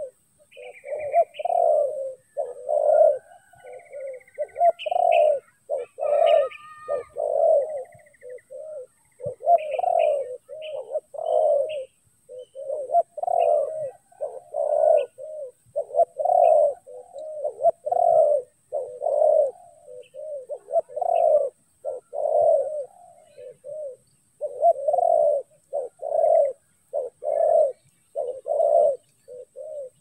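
Spotted doves cooing: low coo notes repeated one after another almost without pause. Faint chirps from small birds sit over them in roughly the first dozen seconds.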